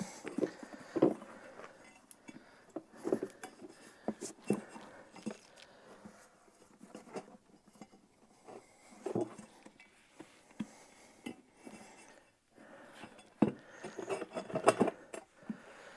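Scattered light knocks and clinks of a small lawn tractor tire, inner tube and wheel rim being handled as the tube is worked into the tire around the rim.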